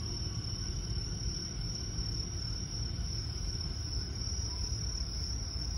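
Crickets trilling steadily in one continuous high band, over the low rumble of an electric commuter train moving away from the platform.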